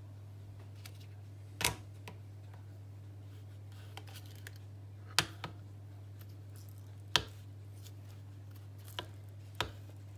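Scattered sharp plastic clicks and knocks, about six over ten seconds, as DJI gimbal batteries and their charging dock are handled and a battery is pressed into the dock on a hard tabletop. A steady low hum runs underneath.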